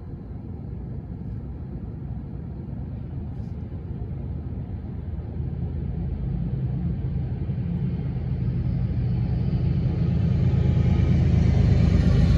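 Approaching freight train's diesel locomotive: a low engine rumble that grows steadily louder as it nears.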